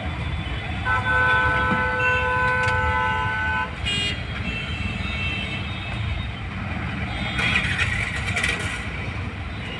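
Road traffic rumbling, with a vehicle horn held for about three seconds starting about a second in.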